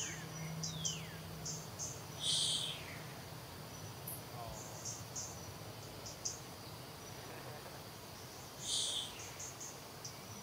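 Outdoor insects chirring steadily at a high pitch in short pulses, with two louder half-second bursts, one a couple of seconds in and one near the end. A couple of short falling whistles are heard near the start.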